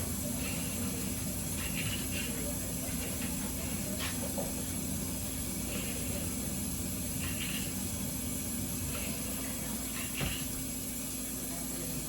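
Steady hiss with a few faint clicks and knocks.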